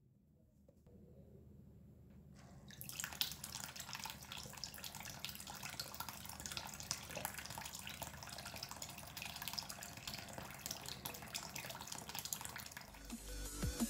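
Homemade mini water pump, a small DC motor in a bottle-cap housing, running submerged in a bowl. Its water jet splashes and patters steadily back into the water from about three seconds in, over a faint low hum.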